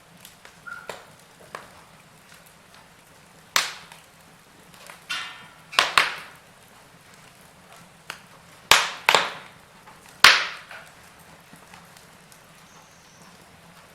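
Wood fire crackling: a low steady hiss broken by about six sharp, loud pops and many smaller ticks, with a brief hiss of escaping gas from the burning wood about five seconds in.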